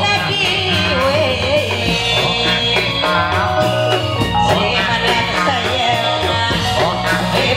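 Loud band music with a singing voice over a steady bass line, accompanying a Reog Indramayu masked dance.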